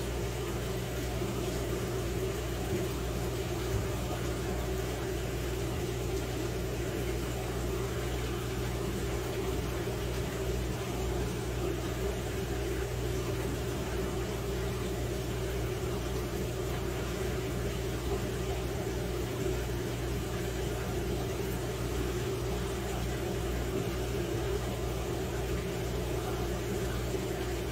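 Steady mechanical hum with a soft hiss over it, from aquarium equipment running, unchanging throughout.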